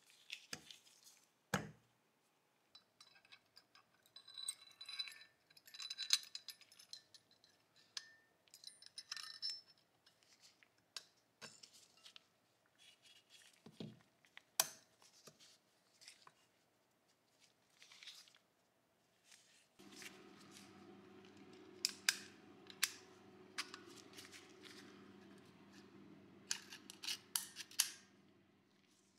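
Metal parts of a Mauser C96 pistol being handled and worked: a string of small clicks, clinks and scrapes of metal on metal. A steady low hum comes in partway through.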